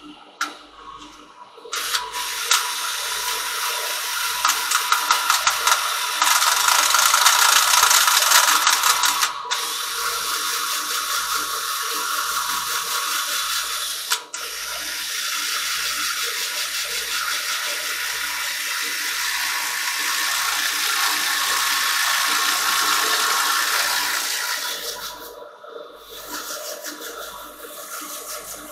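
Power sanding: a cordless drill spinning a 320-grit sanding disc against a silver birch bowl turning on a wood lathe, a steady rushing hiss. It breaks off briefly twice, about a third of the way in and about halfway, and drops away for a moment near the end.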